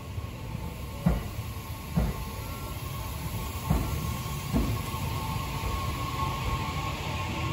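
JR Central 315 series electric train pulling out of the station, its wheels knocking over rail joints in two pairs of thumps about a second apart, over a steady rumble and a thin steady whine that slowly grow louder.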